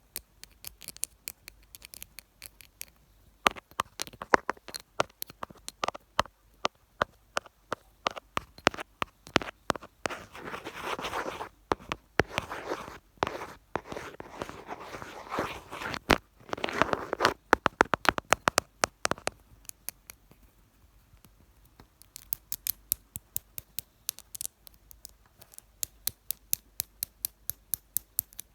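Fingertips tapping and scratching directly on a camera, very close to its microphone. Sharp quick taps run throughout, with a stretch of rubbing and scratching in the middle and rapid light tapping near the end.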